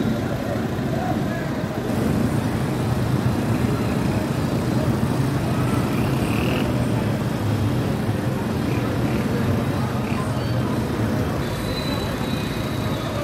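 Steady low rumble of vehicle engines and street traffic, with a crowd of people talking.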